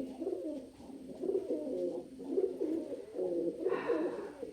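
Domestic pigeons cooing: low, rolling coos one after another with no break, the courtship cooing of a male wooing another bird.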